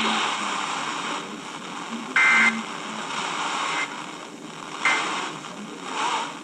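Radio static hiss from weak reception, broken about two seconds in by a short, loud two-tone beep and later by a few fainter short blips.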